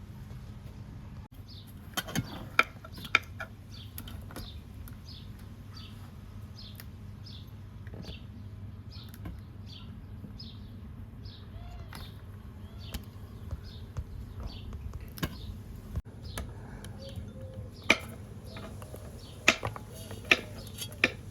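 Sharp clinks and knocks of cookware or utensils being handled, in two short clusters: about two seconds in and again near the end, over a steady low hum. In between, a bird calls over and over, a short high falling note a little more than once a second.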